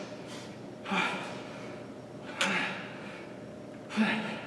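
A man breathing hard through an exercise set: three sharp, forceful exhales about a second and a half apart, each starting with a short grunt, in time with his dumbbell reps.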